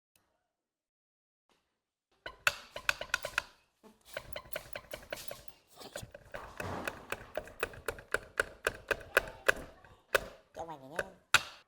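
A fast run of sharp, ringing taps, about four a second, starting a couple of seconds in and going on with short pauses, with a brief wavering squeal near the end.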